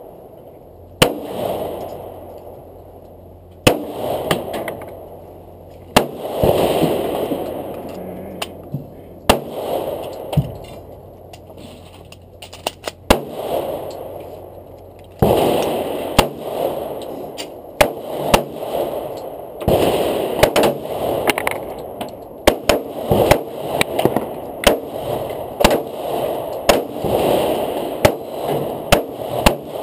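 Handgun shots. They come singly, a few seconds apart, at first, then in rapid, closely spaced strings from about fifteen seconds in.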